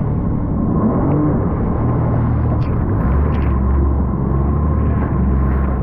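Jet ski engine running, its low drone growing stronger about three seconds in, over a steady rushing noise.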